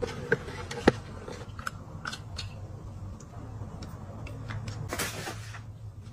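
Hands handling craft materials: scattered sharp clicks and taps, two louder ones within the first second, and a short rustle about five seconds in.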